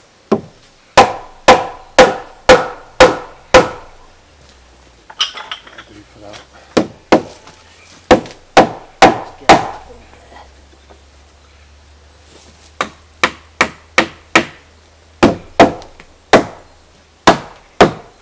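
Mallet blows knocking timber-frame joints home: sharp wooden knocks about two a second, in several runs with short pauses between.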